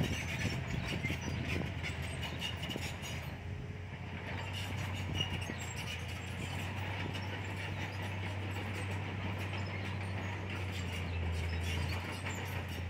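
Komatsu D31PX crawler bulldozer at work: its diesel engine runs with a steady low drone while the tracks give many small clicks and knocks.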